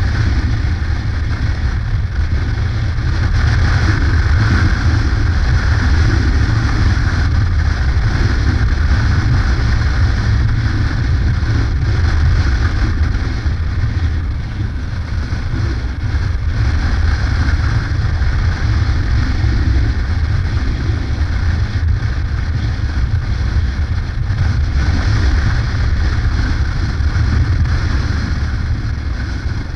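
Yamaha Ténéré adventure motorcycle cruising at a steady road speed: a steady engine and road rumble mixed with wind noise on the microphone.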